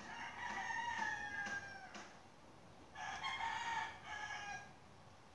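A rooster crowing twice, faintly in the background, each crow a long call that falls slightly in pitch.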